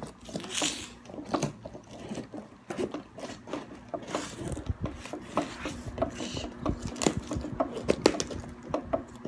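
Hands handling and opening a parcel: irregular clicks, taps and scraping of the packaging.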